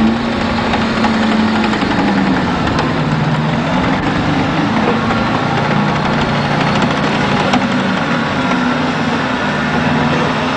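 A large vehicle engine running steadily, its pitch stepping up and down a little.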